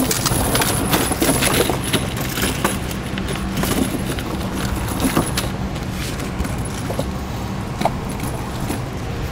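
Steel square-link snow tire chain jingling and clinking as it is draped over a tire and fitted by hand. The clinks come thick and fast for the first few seconds, then thin out to occasional clinks over a steady low hum.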